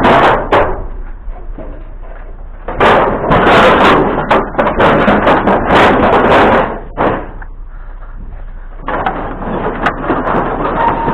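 Pieces of a broken-down shed thrown into a trailer: bouts of loud clattering and banging impacts, with a quieter lull about two-thirds of the way through.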